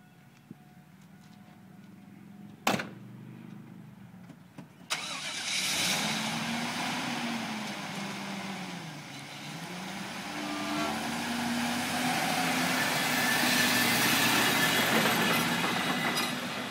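A door slams shut about three seconds in; about two seconds later a GMC pickup truck's engine starts, and the truck pulls away towing an empty flatbed trailer, its engine note rising and falling as it drives off.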